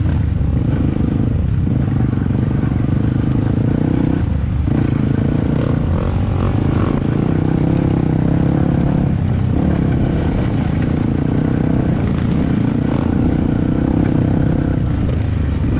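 Yamaha WR155's single-cylinder four-stroke engine running loud and steady while riding a rough dirt trail, its note dipping briefly three times: about four and a half seconds in, around nine seconds, and near the end.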